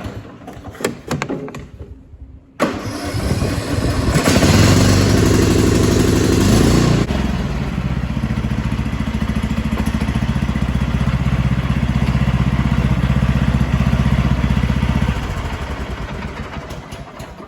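Lawn mower engine starting and running: it comes in sharply a few seconds in and runs fast for a few seconds. It then drops to a lower, steady speed while the mower is moved, and stops near the end.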